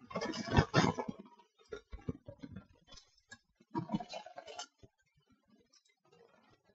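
Clicking and tapping at a computer mouse and keyboard, in three short clusters: the loudest in the first second, a lighter one around two seconds in, and another around four seconds in.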